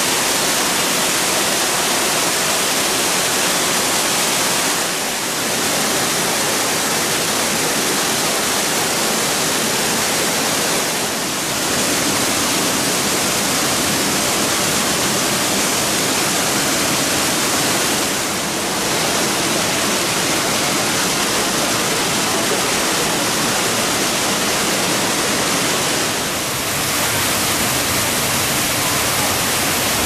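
Nabegataki waterfall, a wide curtain of water falling into its plunge pool, giving a loud, steady rush of falling water that dips briefly four times.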